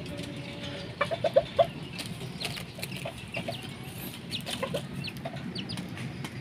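Ayam kate bantam chickens clucking in short notes, with a quick run of four clucks about a second in and scattered single clucks after. Light clicks are mixed in.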